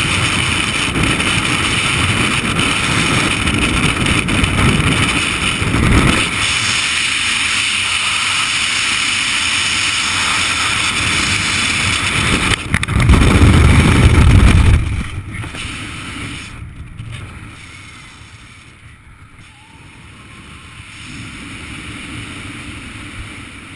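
Freefall wind rushing hard over a skydiver's helmet camera, with a louder buffeting burst about 13 seconds in. The rush then drops away sharply to a much softer, steady hiss as the fall slows under an opened parachute.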